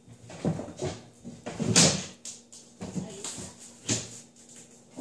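Irregular knocks, light clatter and rustling of objects being handled and set down, with a louder scraping rustle just before two seconds in.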